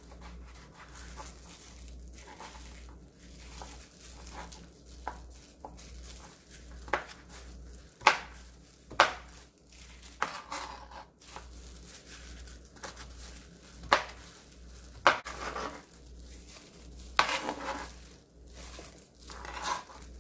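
Chef's knife cutting blanched squid on a cutting board: a run of irregular knife taps and knocks on the board, a few of them much sharper and louder.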